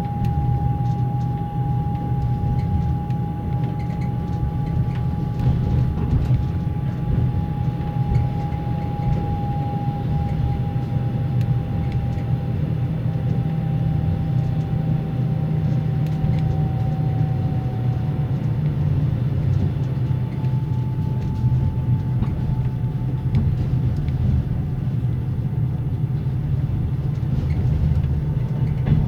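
Passenger sleeper car running at medium speed, heard inside a closed compartment: a steady low rumble with the car's axle-driven generator whining over it. The whine sinks slightly in pitch and fades about two-thirds of the way through, then comes back a little higher soon after.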